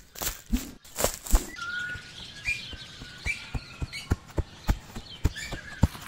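Footsteps running over the forest floor: a few heavier thumps in the first second and a half, then quick steps about three a second. Birds chirp over them.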